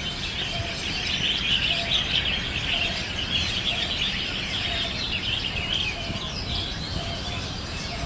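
A cage full of red-whiskered bulbuls chattering together: a dense, unbroken twitter of many overlapping calls.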